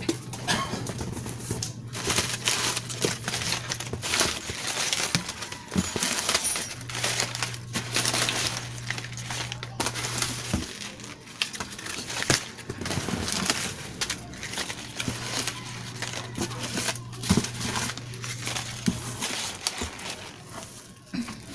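Crumpled paper packing rustling and crackling as hands dig through a cardboard box, in dense irregular handling noise with sharp crackles. A low steady hum comes and goes underneath.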